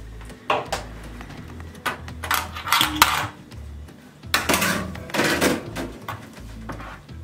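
Dishes and cutlery clinking and clattering in a string of sharp knocks and short scrapes over a low rumble.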